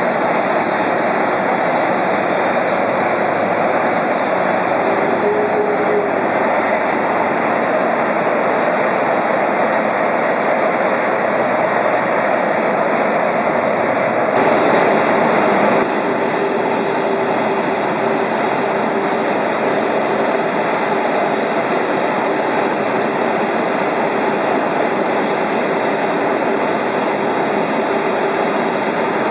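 Airbus A380-861's Engine Alliance GP7270 turbofans running on the ground, a loud steady jet rush. About halfway through the higher hiss gets brighter and a faint steady whine joins in.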